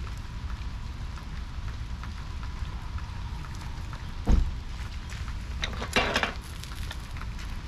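Campfire crackling with small pops, with a dull thump about four seconds in and a brief metallic clatter about six seconds in as a cast iron pie iron is handled on the steel grill grate.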